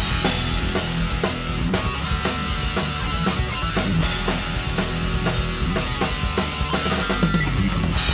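Instrumental rock music with no singing: a drum kit keeping a steady beat under electric guitar.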